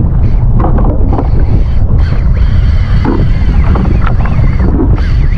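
Wind buffeting the microphone on a boat at sea: a loud, steady rumble.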